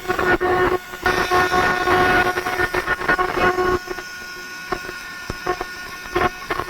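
60W fiber laser marker cutting thin precious-metal sheet: a steady pitched buzz mixed with dense crackling as the pulsed beam burns through the metal. It falls back for a couple of seconds past the middle, then briefly returns near the end.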